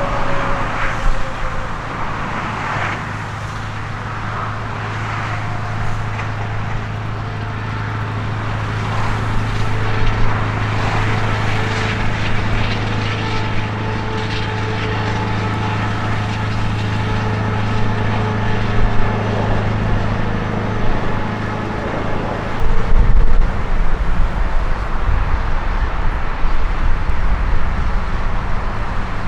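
Airport tow tractor running steadily while pulling an airliner, with a steady engine hum. About 23 seconds in the hum stops and a louder, uneven low rumble takes over.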